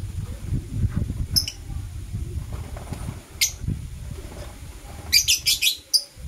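Lovebirds chirping: short, sharp high chirps about a second and a half and three and a half seconds in, then a quick run of several chirps near the end. A low rumbling noise runs underneath.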